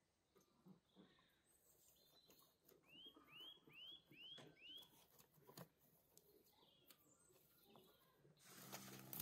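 Cheese scraped on a flat handheld metal grater: faint, scattered scraping strokes, louder near the end. Midway a small bird calls a quick run of five short chirps.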